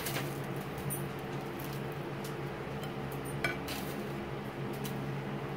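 Croutons dropped by hand onto a plate of pasta: a few scattered light clicks and clinks against the plate, over a steady low hum.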